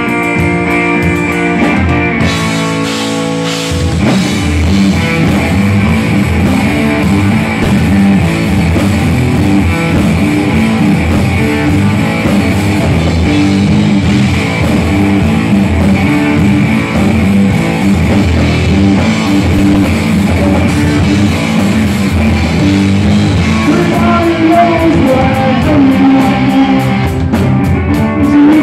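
Hard rock band playing live on electric guitar, bass guitar and drums. The guitar plays alone at first, and the rest of the band comes in about four seconds in, making the sound much fuller and heavier.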